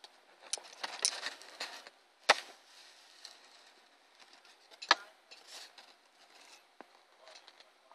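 Faint rustling and crinkling of a folded paper instruction sheet being handled, with two sharp clicks, one about two seconds in and another near five seconds.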